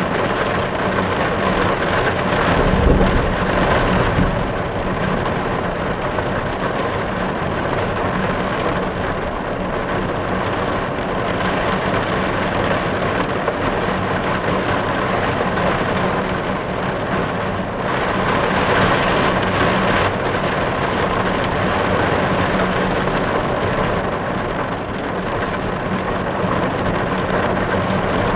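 Steady rain drumming on a car's roof and windows, heard from inside the car as a dense, even patter. A low rumble swells briefly about three seconds in, and the rain grows heavier for a moment a little past halfway.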